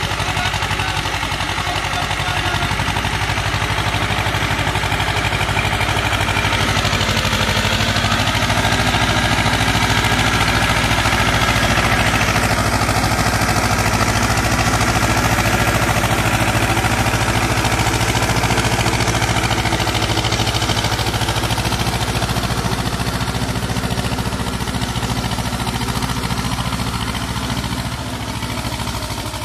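Tractor engine running steadily as it pulls a cultivator through a flooded rice field, churning it into mud before transplanting. It grows louder toward the middle and fades near the end.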